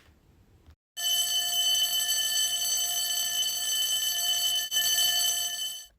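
An electric school bell ringing steadily for about five seconds. It starts about a second in and cuts off sharply near the end.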